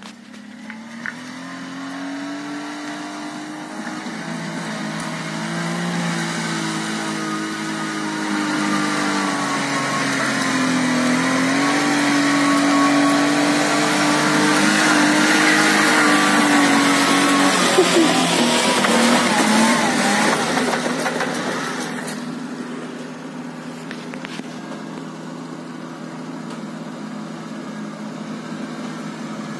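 Small kei truck engine working hard under load in four-wheel drive on a steep muddy climb. The revs rise and fall as the throttle is worked, and it grows louder as the truck nears and passes close by about halfway through, then fades.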